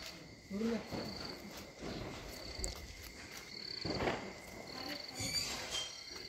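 Crickets chirping at night: short pulsed high chirps repeating about once a second, over a faint steady high tone.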